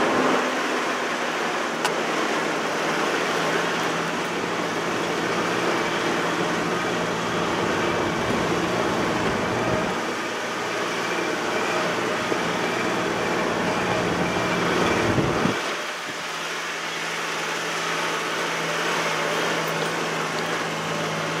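Toyota 4x4's engine running steadily at low speed, with tyres rolling over a rocky dirt track, heard from inside the cab. The engine note dips and shifts briefly about three-quarters of the way through.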